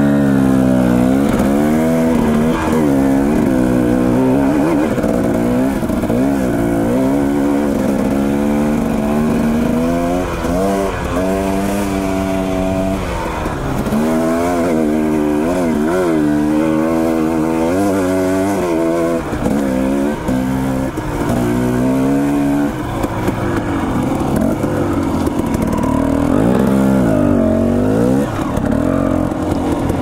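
Dirt bike engine under load on a steep trail climb, the revs rising and falling every second or two as the throttle is worked. The engine settles to a steadier, lower pitch for a few seconds near the end.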